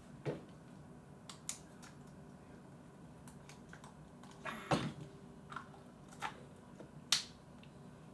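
Scattered small plastic clicks and taps from a GoPro camera and its batteries being handled and swapped, with a slightly heavier knock about halfway through.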